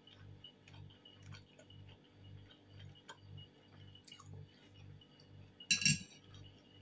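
Fork scraping and clinking on a ceramic plate as food is cut, the loudest sound, about six seconds in, after a lighter click. Beneath it, a faint, even low pulsing about three times a second with light ticks.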